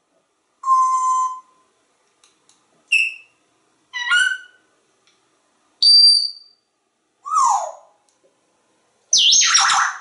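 African grey parrot giving a string of six short whistles and calls with pauses between them: a steady whistled tone, short high chirps, a rising stepped call, a falling call, and a louder sweeping call near the end.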